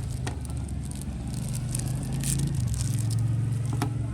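A steady low engine drone, like a motor vehicle running, growing a little louder in the second half, with a few small clicks and a brief scrape over it.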